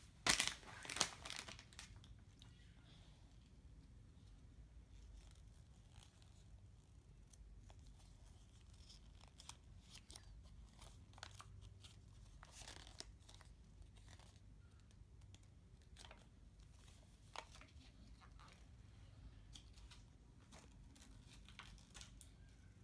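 Paper rustling and crinkling as a small folded toy checklist is handled and unfolded, with two sharper crinkles of paper or packaging in the first second and faint scattered rustles after.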